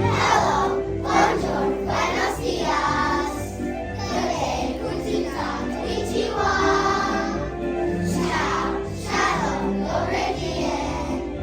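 A children's choir singing in unison over an instrumental accompaniment.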